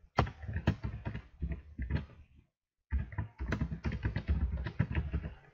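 Typing on a computer keyboard: a quick run of key clicks, a short pause about halfway, then another run of clicks.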